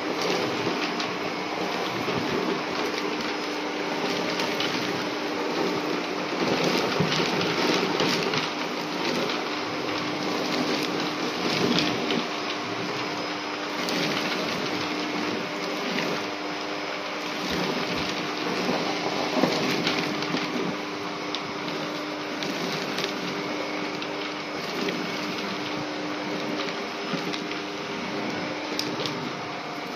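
Upright vacuum cleaner running with its brushroll engaged, picking up shredded paper from a hard floor. A steady motor hum runs under a constant patter of paper scraps rattling through the nozzle into the dust bin.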